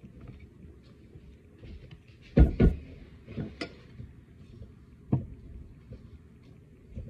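Metal spoons and plastic containers knocking and clacking as rice is scooped and spread onto nori sheets: a loud pair of knocks about two and a half seconds in, a few lighter ones after, and soft clatter between.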